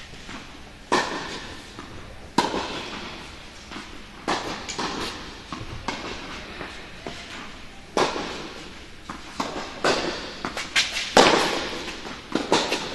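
Tennis balls struck by rackets and bouncing on an indoor hard court: sharp pops every second or two, each echoing in the large hall, with a quicker cluster of hits and bounces near the end.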